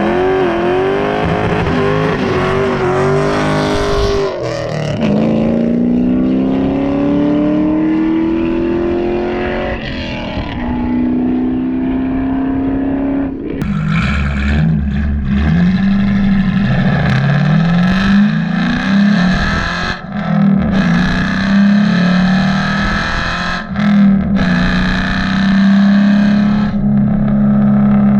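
Ford Mustang GT's V8 engine and exhaust accelerating hard, climbing in pitch and dropping back three times as it upshifts through the gears. After that it holds a steadier note with small rises and dips.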